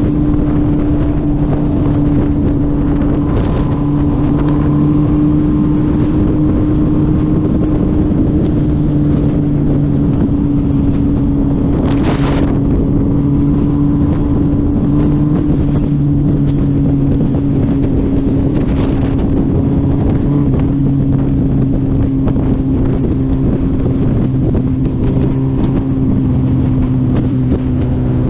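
Suzuki Hayabusa's inline-four engine running steadily at highway cruising speed, heard from the rider's seat with wind rushing over the microphone. Three brief whooshes stand out, about 3, 12 and 19 seconds in.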